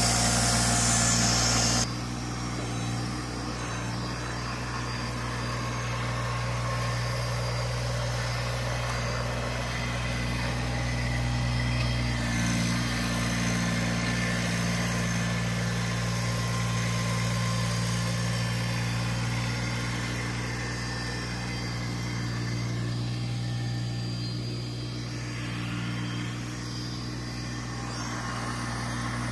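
LS MT125 subcompact tractor's three-cylinder diesel engine running steadily as the tractor moves dirt with its front loader. A louder rushing noise sits on top for the first two seconds and then cuts off suddenly.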